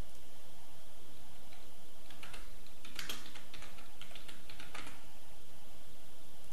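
Typing on a computer keyboard: a quick run of keystrokes lasting about three seconds, starting about two seconds in.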